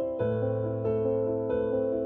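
Soft instrumental background music: a keyboard melody of short notes changing about every half second over a held bass note.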